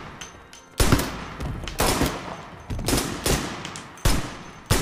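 A series of single gunshots, about six spaced roughly a second apart, each sharp crack followed by a long echo in a large church hall.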